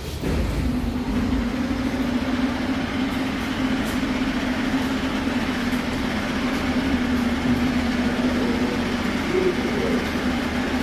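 Moscow metro train standing at the platform with its doors open: its onboard machinery starts up about a quarter second in and keeps up a steady hum over a low rumble.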